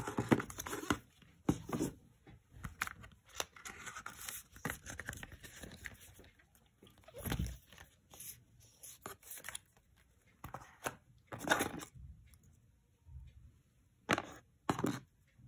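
Paper and cardboard packaging being handled: irregular rustles, scrapes and soft knocks as the inner paper sleeve is lifted and the accessory tray with the charger and cable is opened.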